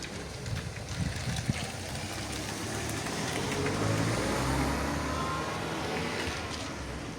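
A car passing by on the street, its engine and tyre noise swelling to a peak about four seconds in and then fading.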